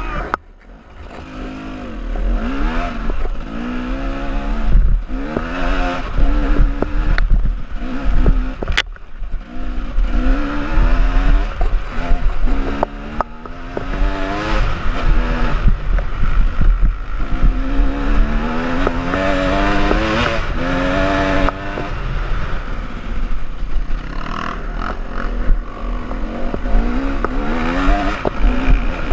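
KTM enduro motorcycle engine revving up and down again and again under a rider on a rough dirt track, briefly low about a second in before it picks up. Low rumble of wind and the bike rattling over bumps, with scattered knocks and one sharp crack about nine seconds in.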